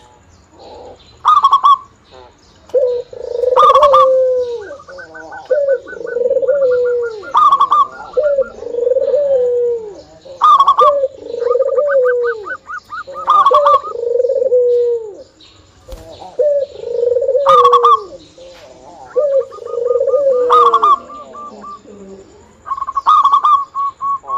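Zebra dove (perkutut) singing loudly. About every three seconds comes a phrase of a sharp high note and a lower, bending coo, with fast rattling trills between the phrases.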